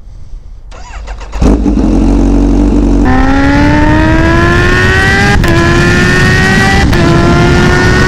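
Kawasaki Ninja H2's supercharged inline-four engine accelerating hard. It comes in loudly about a second and a half in and holds a steady note. Then it climbs steadily in pitch, with two brief drops where it shifts up a gear.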